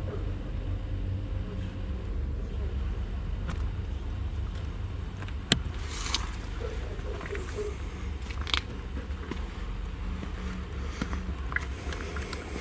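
A steady low rumble with a few scattered sharp knocks or clicks. The loudest knock comes about five and a half seconds in and another about three seconds later.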